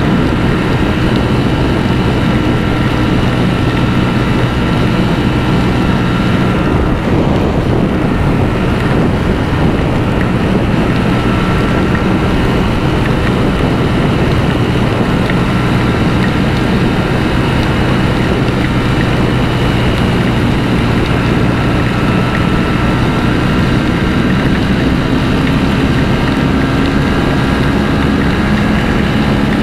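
Ducati V4 motorcycle engine running at a steady road speed under heavy wind noise on the microphone. The engine note breaks briefly about seven seconds in and rises near the end.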